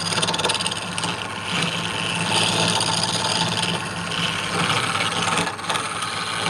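A tool cutting or sanding wood spinning on a lathe, a loud rough hiss over the steady hum of the lathe motor; it stops suddenly near the end.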